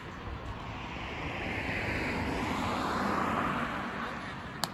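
A passing vehicle: a rushing noise that swells and then eases off, its pitch sliding downward as it goes by. A single sharp click comes just before the end.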